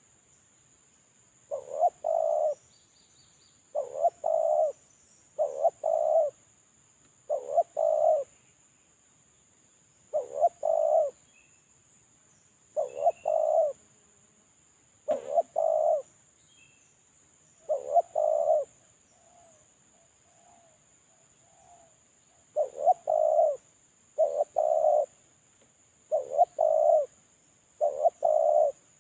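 Spotted dove (terkukur) cooing in repeated phrases, each a short note followed by a longer two-part coo, about one phrase every two seconds. Past the middle there is a pause filled by a few softer notes.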